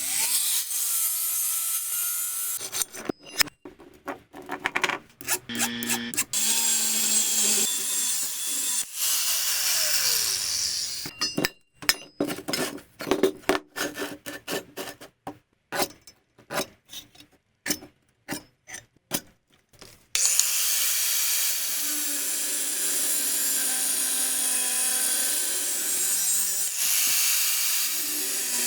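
Metalworking tool sounds: stretches of a power tool grinding or cutting metal with a steady whine, alternating with runs of sharp metallic knocks and taps. The power tool runs at the start, again in the middle, and for the last third; the knocking fills the gaps between.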